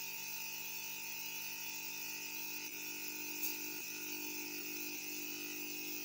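Steady room tone: an even hiss with a faint hum, and one faint click about three and a half seconds in.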